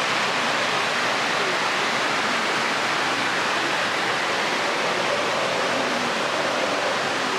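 Water cascading down the walls of a 9/11 Memorial pool: a steady rush of falling water.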